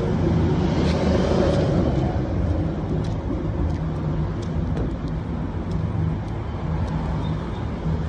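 City street traffic: a steady rumble of passing cars, with faint light clicks now and then.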